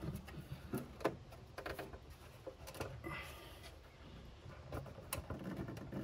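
Valve cover of a Mercedes M117 V8 being worked loose and lifted off the cylinder head by hand: scattered light clicks, knocks and scrapes, with sharper knocks about a second in and again about five seconds in.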